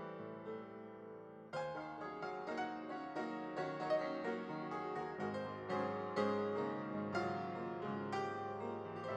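Background piano music. A fuller, louder passage comes in about a second and a half in.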